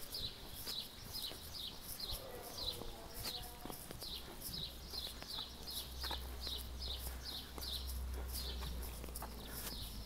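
Footsteps of a walker on a paved street, an even tread at about two to three steps a second. A low engine rumble is heard from about six seconds in to near the end.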